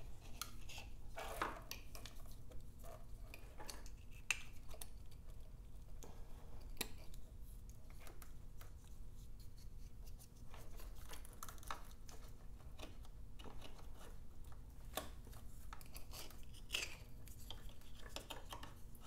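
Plastic wiring connectors and a wiring harness being handled and plugged together: scattered light clicks and rustles of wires, with a few sharper clicks.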